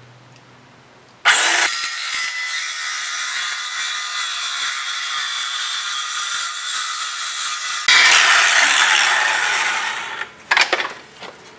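Circular saw cutting a thin strip off the edge of a wooden boat repair plank. The motor starts suddenly about a second in and runs steadily through the cut, then turns louder and harsher about eight seconds in. It dies away around ten seconds, followed by a few light knocks.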